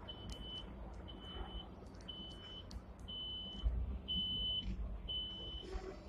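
Electronic warning beeper sounding about once a second, each beep a high steady tone of about half a second, over the low rumble heard inside a Hong Kong tram, with a few light clicks.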